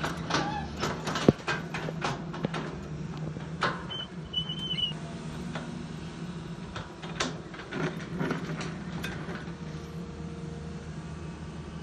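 Long-reach hydraulic excavator's diesel engine running steadily while its bucket trims a soil canal slope, scraping and knocking against the earth in clusters of sharp clicks. One knock about a second in is the loudest, and a second burst of scraping and clatter comes around the eighth second.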